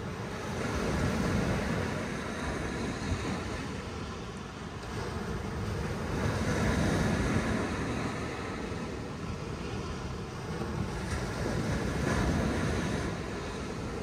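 Small sea waves breaking and washing up a sand beach, the surf swelling three times about five seconds apart and easing back in between.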